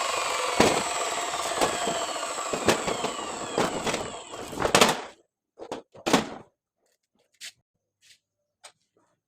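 Power cutter cutting concrete paving blocks, running with a steady whine and a knock about once a second, then stopping about five seconds in. A couple of clatters and a few faint clicks follow.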